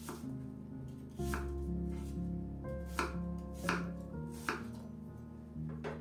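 A knife chopping on a cutting board: about six separate, unevenly spaced chops, one every second or so. Background music plays underneath.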